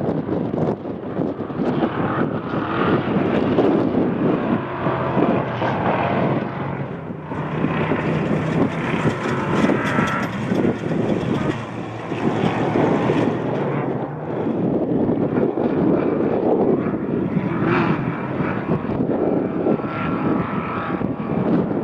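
Off-road race truck engine running hard at speed, its sound swelling and easing several times.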